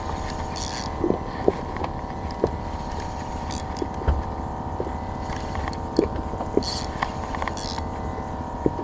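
A boat's motor running steadily, with scattered light knocks and clicks.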